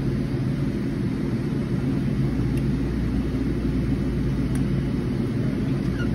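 Steady low machinery hum and rumble with no change in pitch, and a couple of faint clicks partway through.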